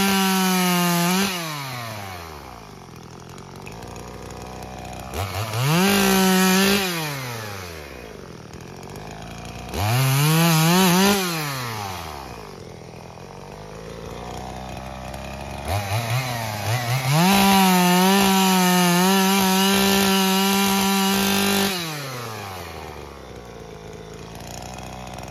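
Chainsaw revving up to a high steady whine four times and dropping back to idle in between, with a few quick throttle blips before the second and last bursts.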